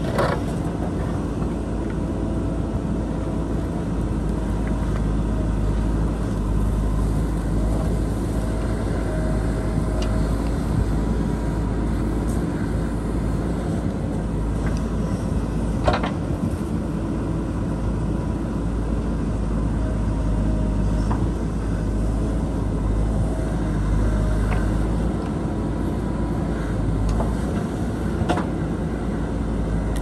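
JCB 3DX backhoe loader's diesel engine running steadily as the backhoe digs into rocky soil. A few sharp knocks of the steel bucket striking earth and rock come about a second in, near the middle (the loudest) and near the end.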